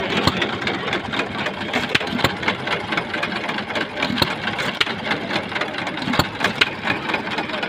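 United hit-and-miss engine running: a steady mechanical clatter broken by sharp exhaust pops at irregular gaps of about half a second to a second and a half, as it fires only when its governor calls for it.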